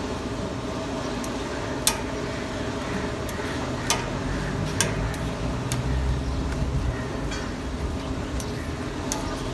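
Metal tongs clicking and tapping against a large steel griddle as parathas are turned, a handful of sharp clicks spread over several seconds, the loudest about two seconds in. Steady street noise runs underneath.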